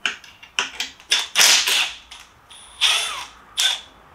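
Cordless drill-driver whirring in several short bursts as it backs out the bolts holding a bicycle's rear disc-brake caliper.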